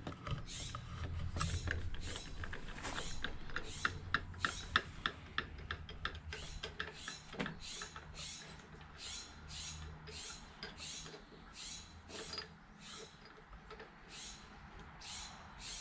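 Ratchet wrench clicking as a 7/16 bolt is backed out of the ignition coil mount: a run of quick, even clicks, about three a second at first, then slower and fainter.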